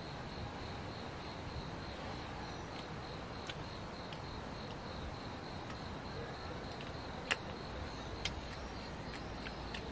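Insects chirping in a steady, evenly pulsing high trill over a constant background hiss, with a few sharp clicks, the loudest about seven seconds in.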